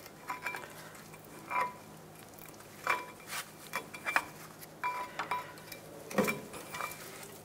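Flat-blade screwdriver prying a brake pad that is stuck in its caliper bracket: a series of sharp metallic clinks and scrapes, several ringing briefly.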